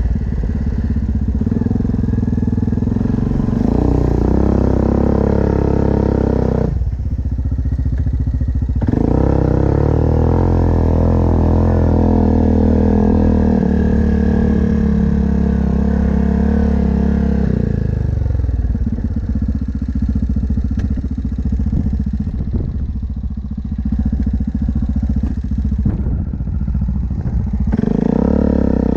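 Yamaha Grizzly ATV's single-cylinder four-stroke engine running under way, its revs rising and falling with the throttle. It eases off briefly about a quarter of the way in, holds a steady pull through the middle, runs lower and rougher for a while, then picks up again near the end.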